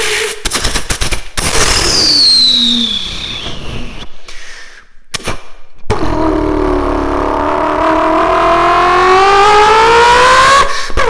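Turbocharged car engine: a sharp crackle in the first second or so, then a high whistle falling in pitch about two seconds in. From about six seconds a loud whine with a rising pitch builds steadily as the engine pulls under acceleration, with the turbo whistle over it.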